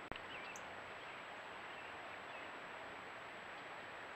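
Steady hiss of a trail camera's microphone with outdoor ambience and a faint high steady whine, broken by a single sharp click just after the start.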